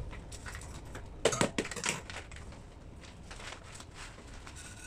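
Short rustles and light clicks from glutinous rice and its packaging being handled and measured out, most of them about a second and a half in.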